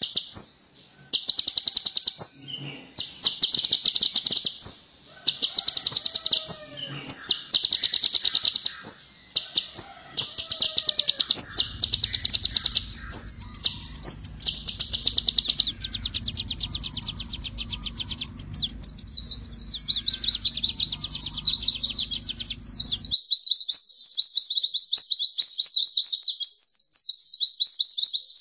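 Kolibri ninja (purple-throated sunbird) singing: fast, high-pitched trills in bursts of about a second, which run together into a continuous twittering song with quick rising and falling notes. A low hum sits underneath through the middle and cuts off suddenly.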